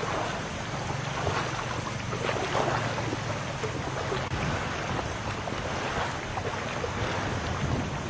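Wind buffeting the microphone over sea water, with small waves lapping and splashing and a steady low hum underneath.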